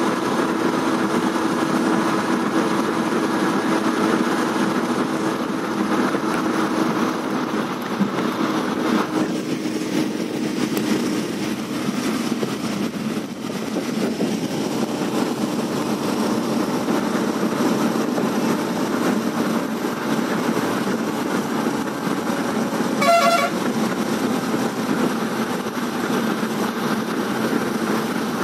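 Steady running noise of a moving vehicle heard from inside, with one short horn toot a few seconds before the end.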